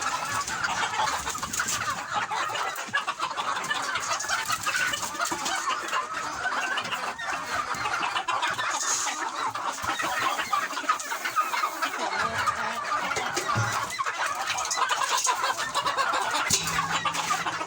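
A flock of chickens clucking continuously over one another as they feed on corn, with many small clicks among the calls.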